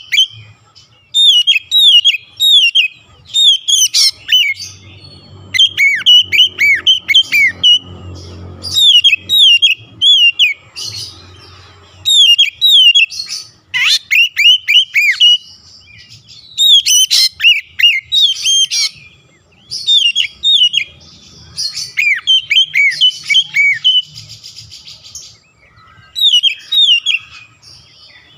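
Oriental magpie-robin (kacer) singing loudly: bursts of rapid, sharply down-slurred whistled notes, repeated phrase after phrase with short pauses between them.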